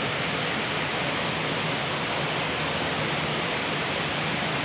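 Steady rushing of flowing river water, an even hiss that holds at one level.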